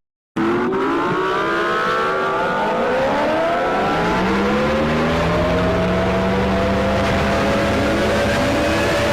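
Emergency-alert-style alarm sound: a loud, harsh hiss layered with many overlapping tones sliding up and down. It starts abruptly about a third of a second in.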